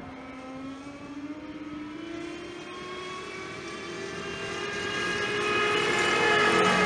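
Diesel engine of heavy farm machinery running and drawing closer, growing steadily louder with its pitch rising slowly, with a high whine above it.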